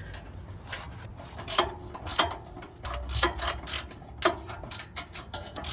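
Ratchet wrench with a 14 mm socket clicking in short, uneven strokes, with a few metallic clinks, as the exhaust flange bolts are fastened.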